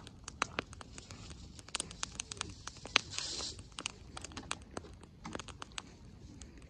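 Wood campfire crackling with irregular sharp pops, and a short hiss about three seconds in.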